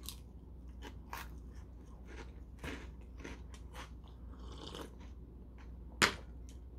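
Close-up crunching and chewing of Nongshim Saeukkang Black shrimp crackers, with irregular crisp crunches. About six seconds in comes one sharp knock, the loudest sound, as a mug is set down on the table.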